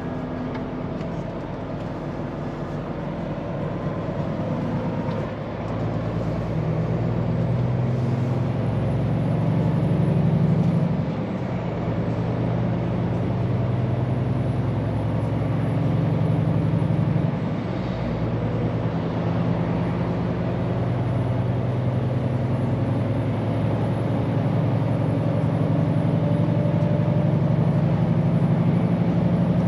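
Scania P410 truck's diesel engine pulling under load, building in pitch and loudness, with two sudden dips about 11 and 17 seconds in, as at gear changes, then a long steady build.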